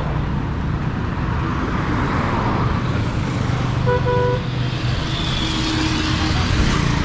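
Road traffic passing close by, a steady rumble of car engines and tyres, with a short car horn toot about four seconds in.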